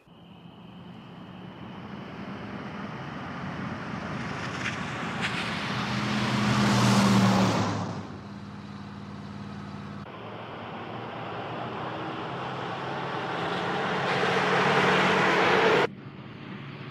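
Car engines and road noise at speed. The sound swells as a car approaches and passes, drops suddenly about eight seconds in, then builds steadily again before breaking off abruptly near the end.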